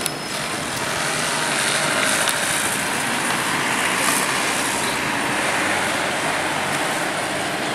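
Steady rushing outdoor background noise, even and unbroken, with no single clear source.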